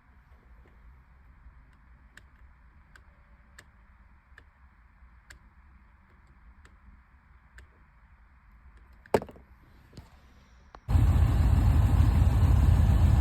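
Faint, evenly spaced ticks, then a sharp click about nine seconds in, and the C5 Corvette's V8 engine starts about eleven seconds in and runs loud and steady.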